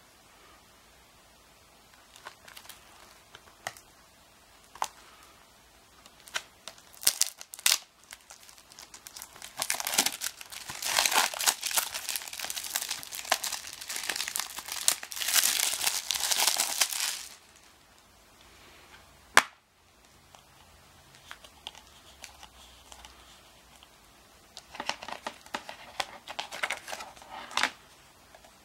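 Plastic shrink wrap crinkling and tearing as it is peeled off a plastic Blu-ray case, a dense stretch of several seconds in the middle. Scattered light clicks of the case being handled come before it. A single sharp click follows, the case snapping open, then light paper rustling near the end.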